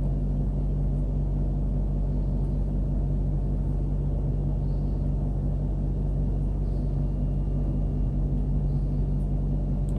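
Steady low hum and rumble, unchanging throughout, with no distinct knocks or clicks.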